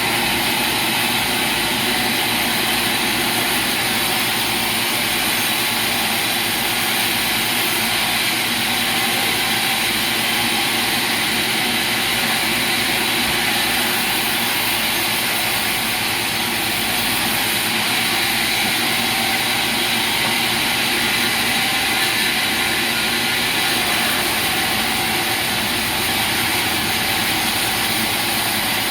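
Sawmill machinery running steadily: a constant, loud mechanical drone with no clear breaks.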